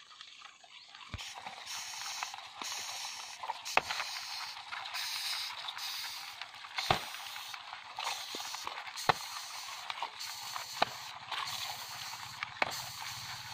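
Beetles being dropped one at a time onto a banana leaf, each landing as a sharp tap, about six in all, over a steady high hiss.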